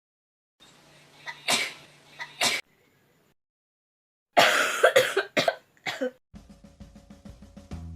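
A person coughing: two short coughs, then after a pause a harder fit of several coughs in quick succession. Background music begins a little after six seconds in.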